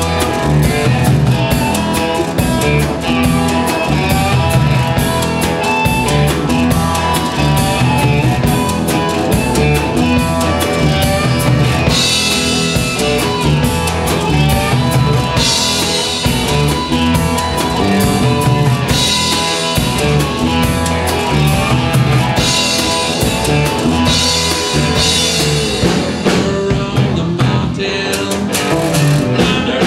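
Live blues-rock band: electric cigar-box guitars and a drum kit, with a harmonica played through the vocal mic over them. Cymbal crashes ring out several times in the second half.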